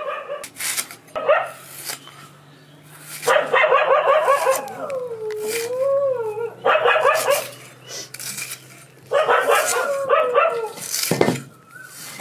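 A dog yelping and whining: a few short yelps, then long high whines that waver and slide down in pitch, about three seconds in and again about nine seconds in.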